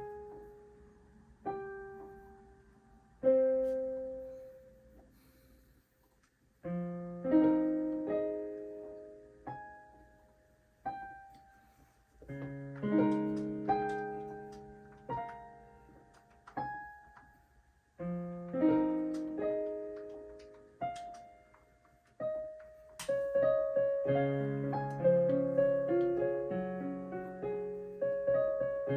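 STRICH SDP-300 88-key digital piano played through its built-in speakers in a piano voice: a slow beginner's piece of single notes and chords, each note fading away, with short pauses between phrases. The playing gets busier and fuller about two-thirds of the way through.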